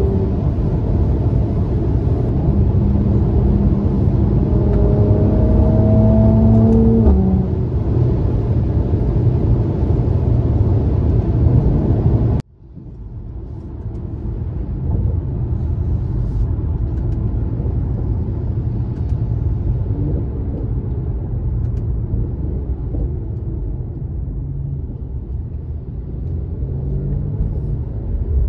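Mercedes-AMG C43 engine and exhaust heard from inside the cabin, pulling under acceleration with its pitch rising for several seconds, then dropping at a gear change. Partway through the sound cuts out abruptly and returns as steadier, quieter running at a constant pitch.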